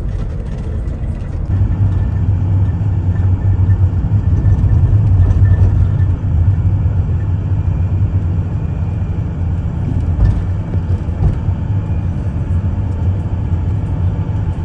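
Engine and road noise of a small bus on the move, heard inside the cabin: a steady low rumble that swells a little a few seconds in.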